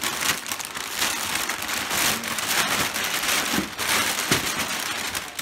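Thin plastic packing bag crinkling loudly as it is crumpled and pulled out of a cardboard box, in repeated rustling surges.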